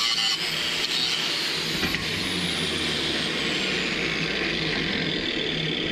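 Angle grinder cutting into a steel billet held in a vise, then let off and spinning down, its whine falling steadily in pitch over about three seconds.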